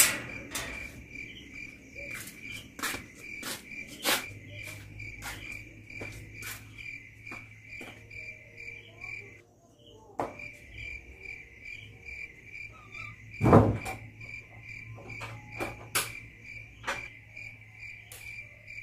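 Crickets chirping in a steady, even pulse, with scattered sharp clicks and knocks and a louder thump about thirteen and a half seconds in.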